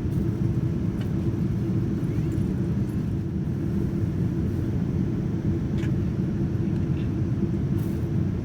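Steady in-flight cabin rumble inside a Boeing 787-9 airliner: engine and airflow noise that holds level, with a few faint clicks.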